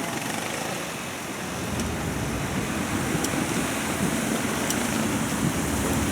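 Riding noise aboard a moving tourist road train: the vehicle running, with wind rushing over the microphone. It grows a little louder about a second and a half in.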